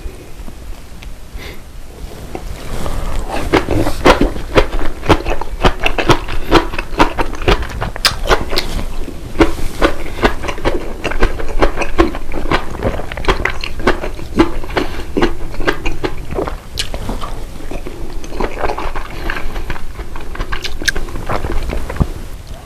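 Close-up eating sounds: a person chewing a mouthful of food, with many quick, irregular wet clicks of the mouth that pick up about two and a half seconds in.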